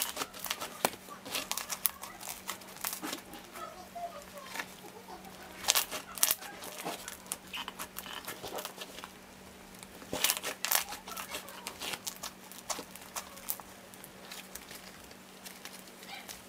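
Pink slime with beads mixed in being squished, pressed and stretched by hand, giving irregular crackling clicks and pops, louder in bursts about six and ten seconds in.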